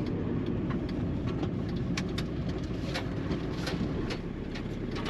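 Volkswagen Caddy camper van's engine and road noise heard from inside the cabin while driving: a steady low rumble with scattered light ticks and rattles.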